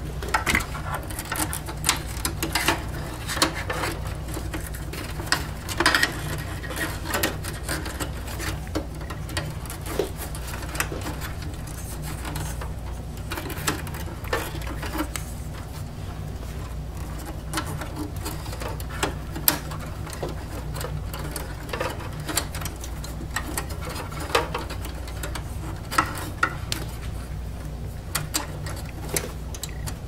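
Irregular small clicks and rattles of SATA power cables and plastic clips being handled and pulled free inside an open desktop computer case, over a steady low hum.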